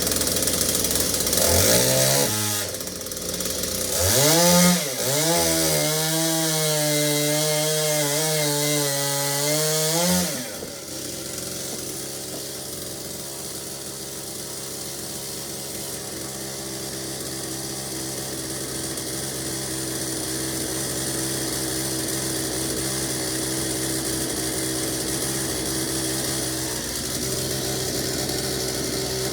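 Partner chainsaw's two-stroke engine being revved: a quick rising rev about two seconds in, then held at high revs for about six seconds with a slightly wavering pitch, before dropping suddenly to a lower steady running note for the rest.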